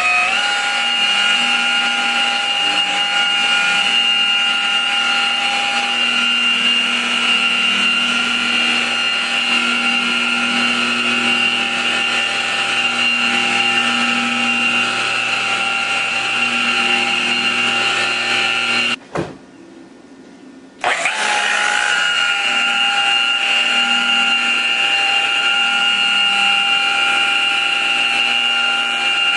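Variable-speed electric buffer running steadily with a motor whine as its pad polishes a car's painted hood to buff out a scratch. The sound cuts out for about two seconds roughly two-thirds of the way through, then comes back.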